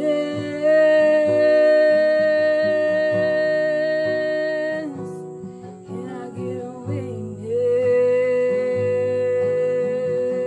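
A woman singing a gospel song to her own strummed acoustic guitar: a long held sung note for about five seconds, a short wavering phrase, then a second long held note to the end.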